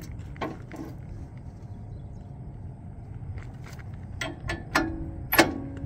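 Metal clicks and clunks from the reel cam plate and its locking pin on a MacDon draper header as the cam is turned back to position 2: two clicks soon after the start, a quick run of clicks about four seconds in and the loudest clunk about five and a half seconds in, over a steady low rumble.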